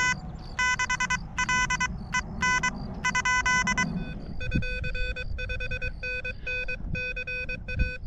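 Morse code (CW) tones from the small built-in speaker of an Elecraft KH1 QRP transceiver: a buzzy beep keyed on and off in dits and dahs. The elements get shorter and quicker about halfway through.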